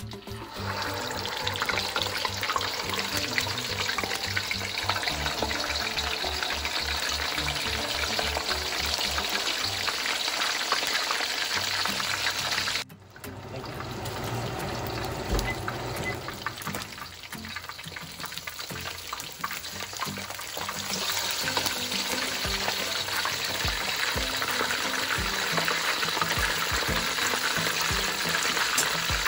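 Whole red snapper deep-frying in hot oil in a wok: a steady crackling sizzle that jumps up as the fish goes into the oil about half a second in.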